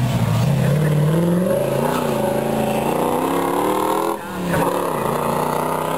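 Classic race car's engine accelerating hard away down the straight: the revs climb, drop back at each of two upshifts, and climb again.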